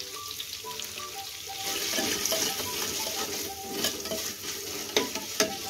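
Spices frying in hot coconut oil in a clay pot, a steady sizzle that grows louder about two seconds in as a metal spoon stirs them, with a few sharp knocks of the spoon against the pot near the end.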